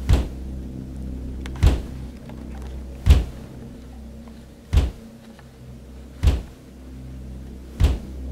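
Heavy thuds, six of them, evenly spaced about every one and a half seconds, over a low steady drone.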